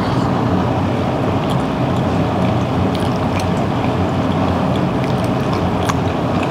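Steady dining-room background din with a low hum, and a few light clicks of a metal fork and spoon against a ceramic pasta bowl.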